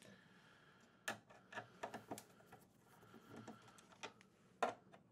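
Faint, irregular clicks and taps of hands and a small tool working at the plastic rear panel of an instrument cluster, with the sharpest click near the end.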